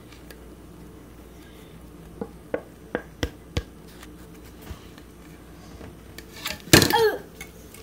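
A wire whisk tapping against the mixing bowl and glass baking dish to knock off chocolate cake batter: a run of about five sharp taps a couple of seconds in, and a fainter one later. Near the end comes a brief, louder sound.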